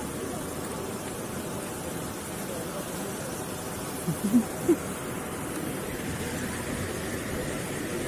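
Steady rush of water from a rocky mountain stream and waterfall, with a few short distant voices about four seconds in.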